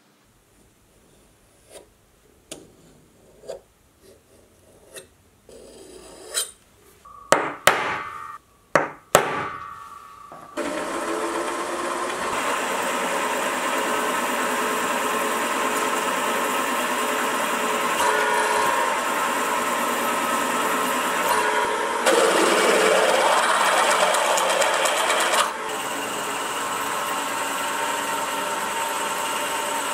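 A small bench milling machine running, its twist drill boring a hole into a hot-rolled steel block held in the vise, with a steady motor drone and cutting noise. It gets louder and rougher for a few seconds about two-thirds of the way through. Before the spindle starts, about ten seconds of scattered knocks and clicks.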